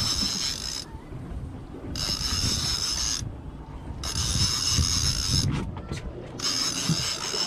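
Fishing reel whirring in four bursts of about a second each, evenly spaced, while a fish is being fought on rod and reel. A low rumble of wind and the boat runs underneath.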